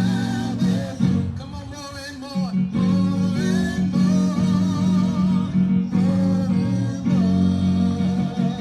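Church music: electric guitar and bass guitar playing under a steady low sustained note, with a wavering melody line that is likely a voice singing. There is a short softer passage about a second in.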